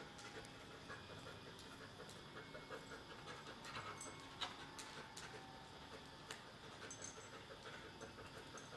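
A dog panting faintly in quick, even breaths, with a few light clicks.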